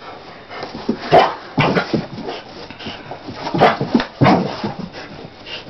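Dog spinning round after its tail on carpet: an irregular string of short scuffling noises, loudest about a second in and again around four seconds in.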